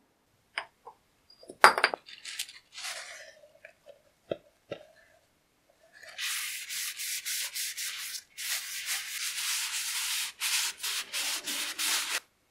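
A cloth rubbing linseed oil into a freshly turned wooden handle: scratchy rubbing in quick back-and-forth strokes that starts about halfway through and stops just before the end. A few scattered clicks and knocks come first, the loudest a little under two seconds in.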